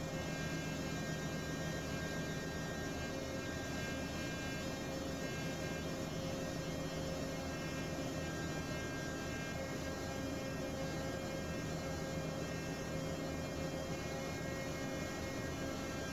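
Steady drone of running machinery in a ship's engine room, with several steady tones held through it and no change in level.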